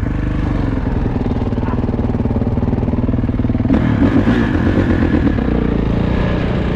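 Kawasaki KX450 dirt bike's four-stroke single-cylinder engine running under way, louder for a stretch a little after the middle.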